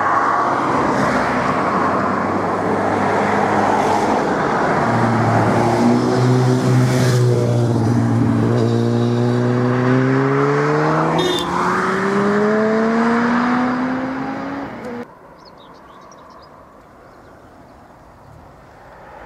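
Diesel multiple unit passing at speed: steady rushing wheel and rail noise, with its engine note climbing steadily as it accelerates. The sound cuts off abruptly about 15 s in, leaving a quieter rumble that grows near the end as an InterCity 225 electric train approaches.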